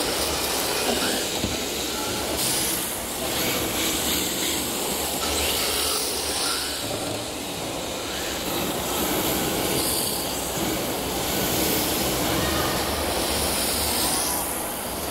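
Electric RC drift cars running around a smooth indoor track, their motors and tyres making a steady hiss and whine over the constant hubbub of an exhibition-hall crowd.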